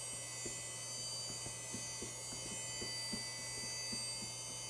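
Power Macintosh 8100's internal hard drive running during startup, a very loud and noisy steady whir and hum, with irregular soft ticks of the drive working as the computer boots.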